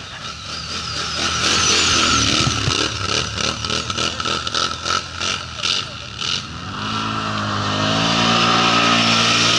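Quad bike (ATV) engines. One is revved in short, uneven pulses as it pulls away. From about seven seconds in, a second quad's engine rises in pitch and is held at high revs.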